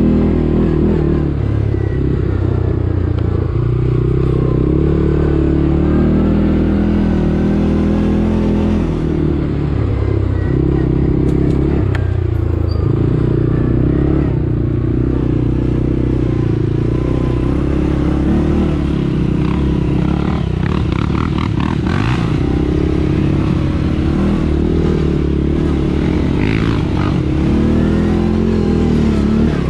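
ATV engine running while riding, its pitch rising and falling with the throttle, with some rattling over rough ground.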